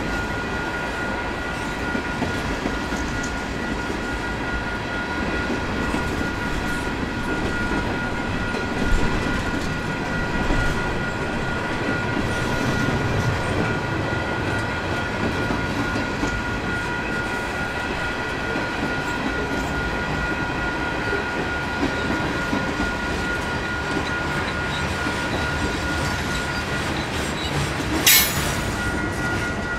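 Freight train rolling past, its wheels clattering over the rail joints, with a steady high-pitched tone over the rumble. A single sharp crack sounds near the end.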